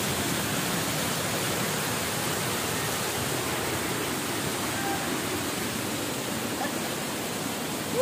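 Waterfall water rushing in a steady, even hiss. One brief sharp sound comes right at the end.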